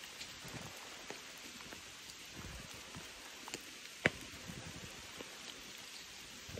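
Steady rain falling, with many drops ticking close by and one sharper tick about four seconds in.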